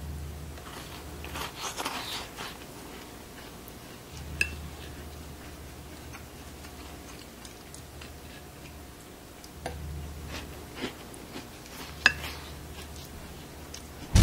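Crisp crackling and crunching of a baked tart shell filled with imitation crab salad as it is handled and bitten, with a few sharp clicks.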